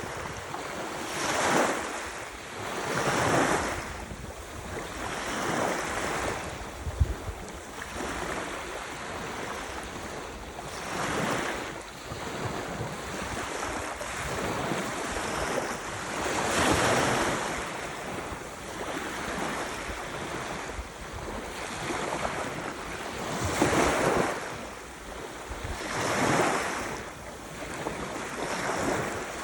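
Ocean surf: waves breaking and washing in one after another, swelling and fading every two to three seconds. A brief low thump stands out about seven seconds in.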